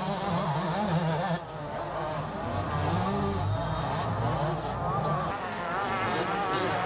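125 cc two-stroke motocross motorcycles racing, their engines revving up and down with a pitch that keeps rising and falling as the riders climb and corner.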